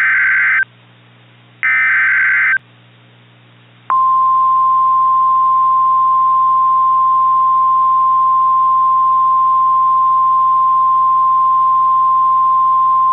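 EAS SAME header data bursts, the last two of the three, each a harsh digital screech about a second long. About four seconds in they give way to a single steady tone of about 1050 Hz, the NOAA Weather Radio warning alarm tone, which announces an alert and holds without a break. A faint low hum lies under both.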